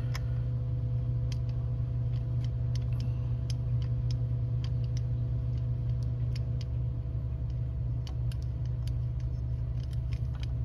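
A steady low hum, with scattered light clicks and ticks as the model locomotive's metal chassis and motor are handled and turned over in the hands.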